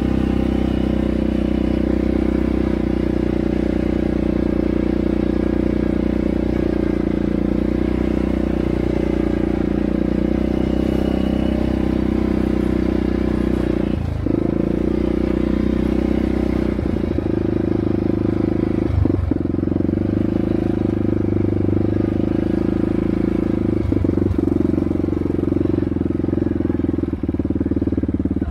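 ATV engine running steadily under way, with a few brief dips in its note in the second half.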